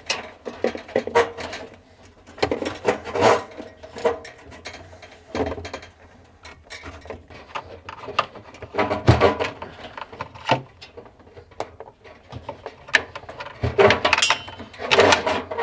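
Irregular clicks, knocks and scraping as a refrigerator's replacement freezer defrost heater is worked through the evaporator coil, with some brief metallic ringing.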